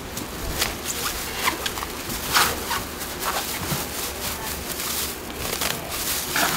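Thin plastic bag crinkling as it is pulled off a slab of kalguksu noodle dough. It makes a run of short, sharp crackles, the loudest about two and a half seconds in.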